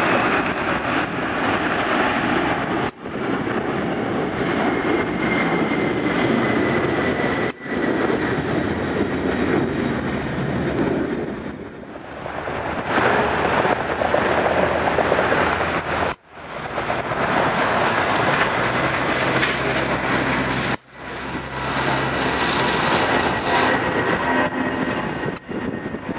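Jet airliners taking off at high thrust: a loud, steady jet roar with a thin engine whine slowly falling in pitch, in short takes broken by abrupt cuts every few seconds. First a Boeing 747 lifting off, then an Airbus A320-family twinjet climbing out overhead.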